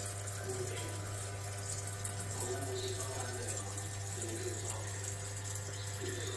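Water running and splashing inside a Panasonic NA-F90A4 top-loading washing machine, over a steady low hum.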